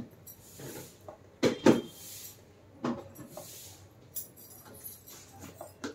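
Kitchen clatter from steel containers and utensils being handled and set down on the counter: a handful of separate clinks and knocks, the loudest two in quick succession about a second and a half in.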